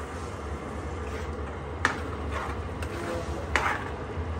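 Spatula stirring curry in a kadhai while curd is poured in, with a couple of sharp clinks against the pan about two seconds in and again near the end, over a steady low hum.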